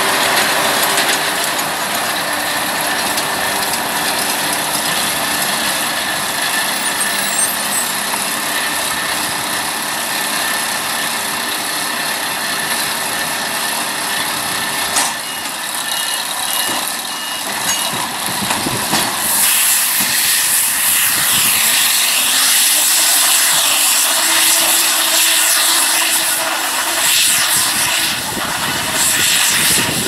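New Holland T7 tractor towing a McHale round baler as it picks up and bales grass silage: a steady, loud mechanical noise of engine and baler working. The sound shifts abruptly about halfway through, and the higher part grows louder after that.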